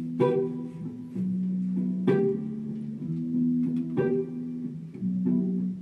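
Instrumental intro from a small band: electric guitar and keyboard playing sustained chords, with a new chord struck about once a second.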